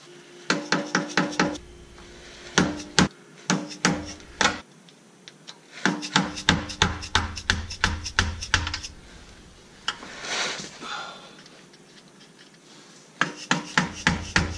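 A hammer tapping a screwdriver driven into a Jeep transfer case output seal to knock the leaking seal out: bursts of rapid metal clinks, several a second, each with a short ring, separated by pauses.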